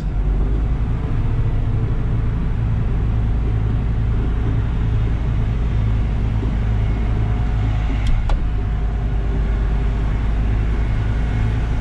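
Semi tractor's diesel engine running steadily as the truck creeps along at low speed, heard from inside the cab. Two short clicks come about eight seconds in.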